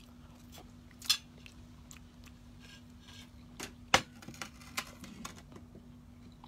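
A man chewing a mouthful of food, with a few sharp clicks of metal cutlery against a plate, the loudest about four seconds in.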